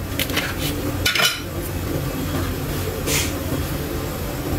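A few light knocks and clinks of handling against a glass baking dish, over a steady low hum.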